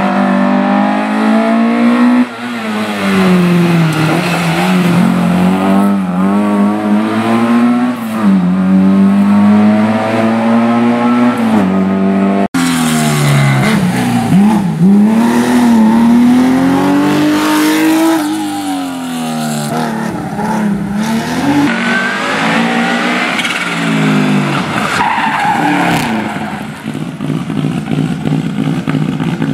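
Historic rally cars driven flat out, engines revving hard and rising and falling in pitch through repeated gear changes. There is an abrupt cut about twelve seconds in, after which a second car is heard.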